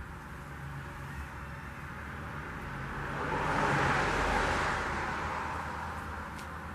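A car passing on the road: its tyre and engine noise swells to a peak about four seconds in and fades away, over a steady low hum.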